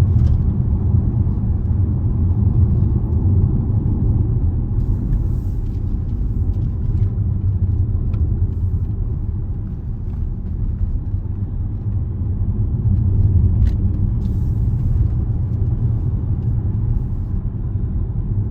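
Range Rover's engine and road noise heard from inside the cabin while driving: a steady low rumble that dips slightly about halfway through, then rises again.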